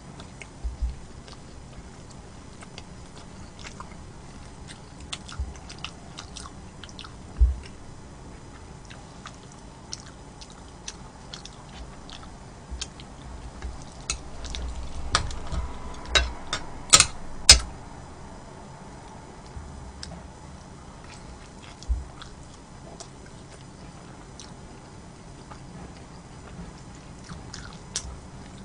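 Close-miked eating sounds: a person chewing and biting, with scattered small mouth clicks. A louder run of sharp clicks comes about two-thirds of the way through.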